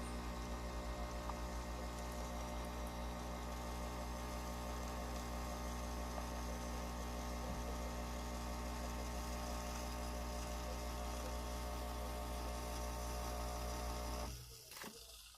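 A capsule espresso machine's pump hums steadily as it brews, then cuts off about fourteen seconds in.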